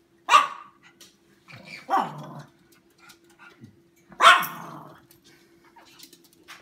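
A small dog barking three times, about two seconds apart, with a faint steady hum underneath.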